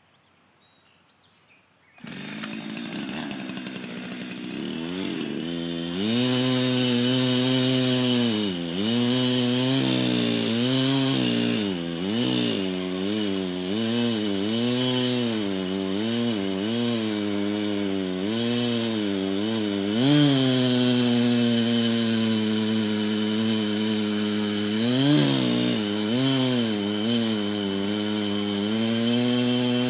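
Jonsered 2165 two-stroke chainsaw starts abruptly about two seconds in and climbs to full throttle. Its engine pitch then dips and recovers again and again as the chain bogs in the wood of a tree cut, and holds steadier towards the end.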